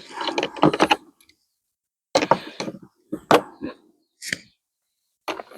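Metal hand tools clattering and clinking: sockets or spanners being rummaged through and knocked together in a rattle, then several separate sharp knocks a second or so apart.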